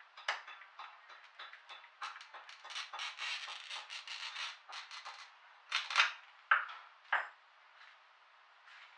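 Hand-held glass cutter's wheel scoring a line across a mirror: a run of little clicks that turns into a steady gritty scratching. A few sharp clinks follow, about a second after the scratching ends.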